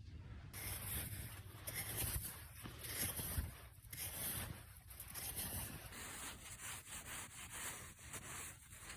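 Repeated crunching and scraping of snow, an irregular run of rough strokes.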